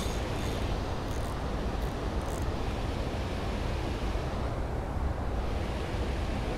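Steady rushing noise of wind buffeting the microphone over flowing water, with a few faint high ticks in the first couple of seconds.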